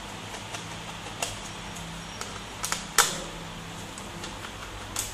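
Small screwdriver clicking and tapping against the screws of a laptop's plastic bottom access panel: a few scattered light clicks, with one sharper click about three seconds in, over a faint steady hum.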